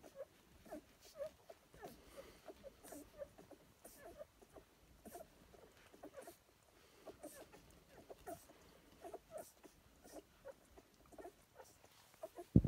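Newborn puppies nursing: faint, high little squeaks and soft suckling clicks, several a second, coming and going irregularly.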